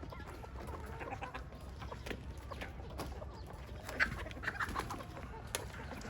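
Chickens clucking, many short calls from several birds overlapping, over a steady low rumble.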